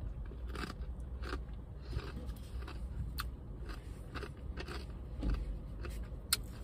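A person chewing a mouthful of six-layer bean dip, with irregular crisp crunches every half second or so.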